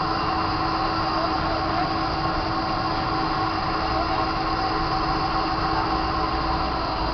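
Nippei centreless grinder running steadily on a test run: an even machine hum with several held tones over a noisy bed.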